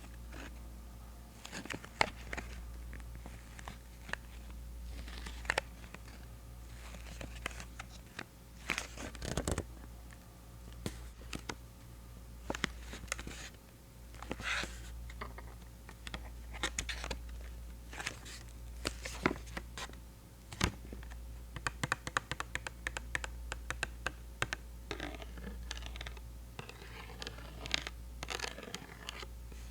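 Close-up handling of Pentel eraser caps: irregular small taps and clicks mixed with scratching and scraping.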